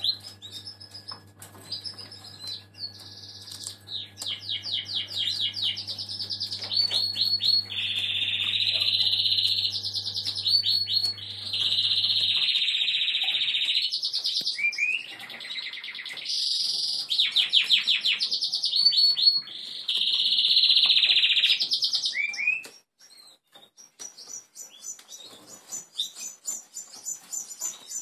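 A caged canary singing a long song of rapid trills and rolling notes, which stops about 22 seconds in, leaving faint high chirps. A steady low hum runs underneath and cuts off about 12 seconds in.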